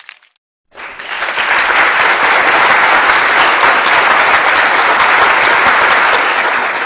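Applause: a crowd clapping, a dense steady patter that starts about a second in and begins to fade near the end.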